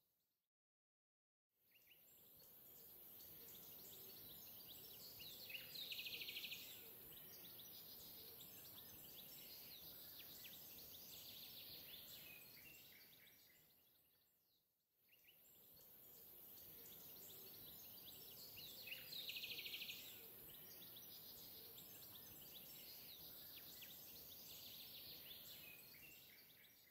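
Faint ambient background track with chirps like birdsong. It fades in, fades out about halfway through, then fades back in, and the same stretch of about 13 seconds plays again.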